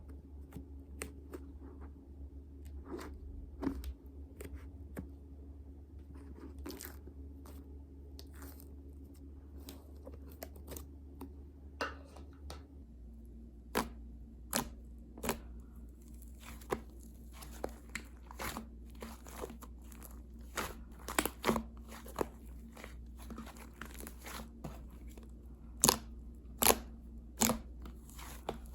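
Irregular sharp clicks and crackles, sparse at first and coming thicker and louder in the second half, over a low steady hum.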